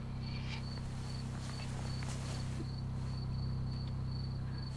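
Crickets chirping in an even rhythm of about three high chirps a second, over a low steady hum, with a few faint brief rustles.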